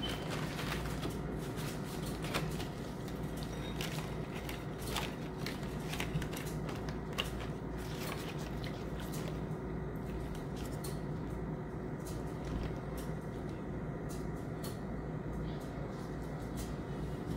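Small clicks and crinkly ticks of rice paper spring roll wrappers being handled, a sheet taken from the stack, wetted and laid flat on a wooden cutting board, over a steady low hum. The clicks come thickest in the first half.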